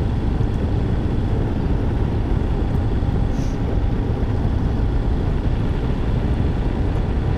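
Steady wind rush and engine hum from a Yamaha Ténéré 700 motorcycle's parallel-twin, cruising at a constant speed of about 45 km/h.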